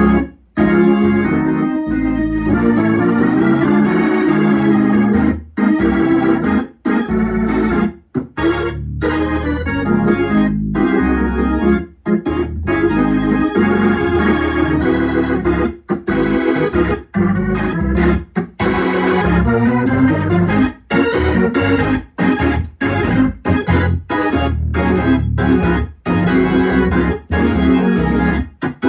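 Hammond C3 organ played through a two-speed Leslie 22R speaker: held chords over a low bass line, with many short breaks between phrases.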